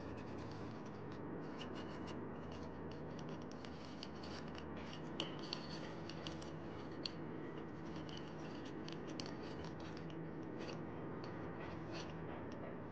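Light scratching and clicking of kitchen utensils, many small irregular strokes with a few sharper ticks about five to seven seconds in, over a steady low hum.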